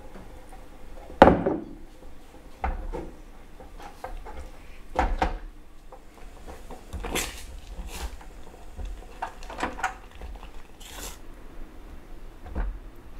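Silicone spatula stirring and scraping milk custard in a hammered metal saucepan as it thickens, with irregular taps and scrapes against the pan. There is a sharp knock about a second in, the loudest sound.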